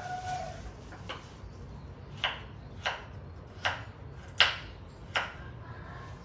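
Knife chopping on a cutting board: six sharp knocks less than a second apart, the loudest a little past the middle.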